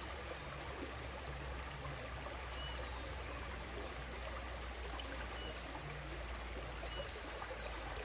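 Shallow rocky river running, a steady trickling rush of water. A short high chirp sounds four times over it.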